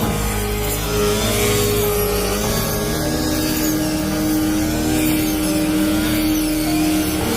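Rice harvester's engine running steadily, its pitch wavering up and down as it works.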